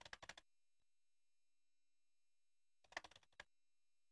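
Near silence with faint computer keyboard typing: a quick run of keystrokes at the start and another short run about three seconds in, over a faint steady high-pitched whine.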